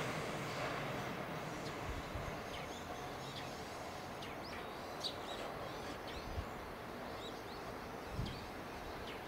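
The rumble of an E231-series electric train fades away in the first few seconds as the train goes into a tunnel. Small birds then chirp in short, high, scattered calls over steady background noise, with a few soft low thumps.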